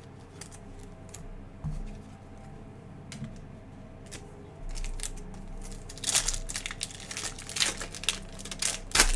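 Foil trading-card pack wrapper crinkling and tearing as it is opened by hand, a dense run of sharp crackles in the last three seconds. Before that, quieter handling with a soft knock about a second and a half in.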